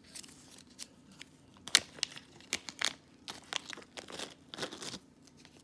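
Small clear plastic bag crinkling in the fingers in irregular bursts as the gold chain inside it is handled, with one sharp crackle just under two seconds in; the crinkling stops about five seconds in.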